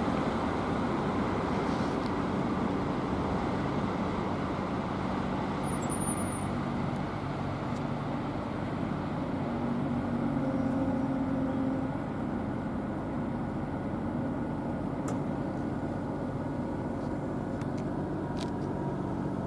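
Steady vehicle rumble with a low hum, swelling slightly about halfway through, then easing off a little.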